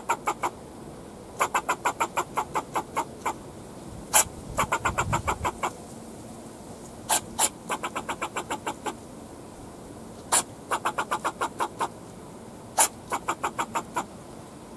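Fox squirrel barking: bouts of sharp chucking calls, each a loud single call followed by a quick run of about five calls a second, a new bout every two to three seconds. It is the squirrel's alarm bark, aimed at the person standing below.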